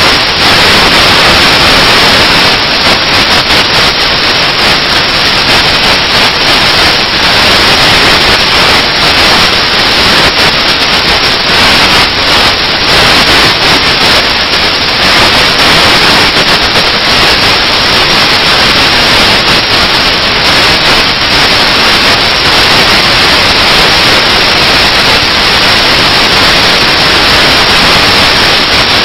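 Loud, steady static hiss like white noise, which cuts in suddenly just before and masks all other sound.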